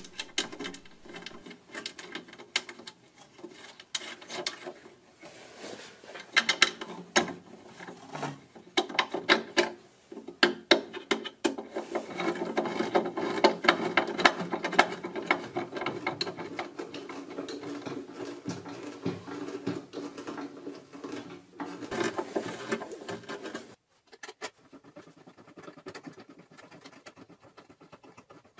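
Small metal clicks and scraping as bolts and leveling screws on a router table's insert plate are turned by hand and with a hex key, with a denser run of continuous scraping and clicking in the middle. Near the end the sound drops sharply to fainter scratching and taps.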